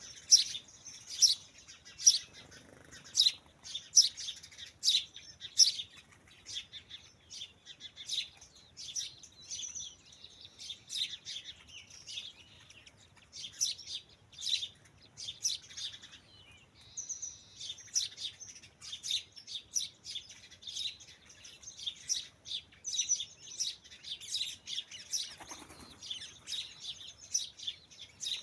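Small birds chirping: a steady run of short, high chirps, several a second, with no pauses.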